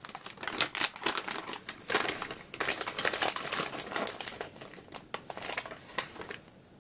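A folded paper advertisement insert being unfolded by hand: irregular crinkling and rustling of paper, dying away near the end.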